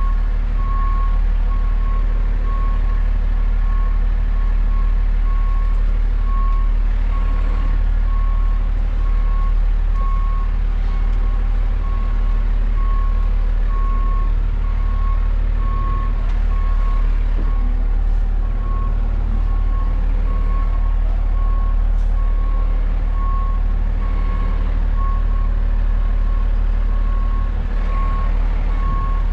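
Truck backup alarm beeping steadily, about one beep a second, over the low steady running of the tow truck's engine, heard from inside the cab.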